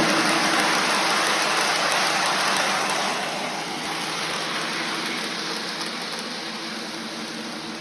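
O scale Polar Express model train running on its track, a steady mechanical rumble and whir of motor and wheels that grows gradually fainter from about three seconds in, as if the train is moving away.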